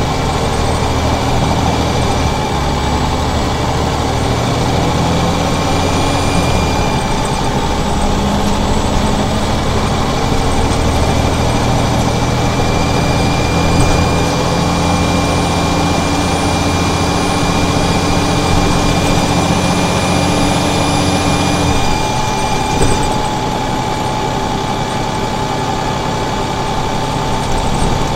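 Scania DSC9 diesel engine of an articulated Scania OmniCity city bus running steadily under way, with a thin high-pitched whine over the engine note: an engine squeal whose cause is unknown. Near the end the engine note drops back and gets quieter, the whine stops, and there is a brief knock.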